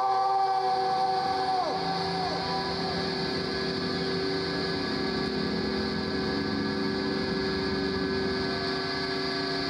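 Electric guitar feedback droning through Marshall amp stacks: several steady tones held together, with a higher whine that holds for about the first two seconds and then drops away.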